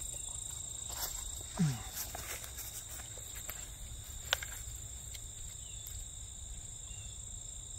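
Steady high chirring of insects in the field, over a low rumble of wind on the microphone. A brief low sound falls in pitch about one and a half seconds in, and a single sharp click comes about four seconds in, among a few fainter ticks.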